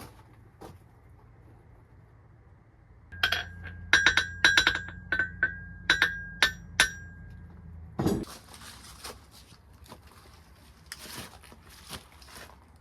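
Hammer striking a Hay-Budden anvil about ten times over some four seconds, each blow ringing with a clear bell-like tone. A loud thump and rush follow, then softer scraping and handling noises.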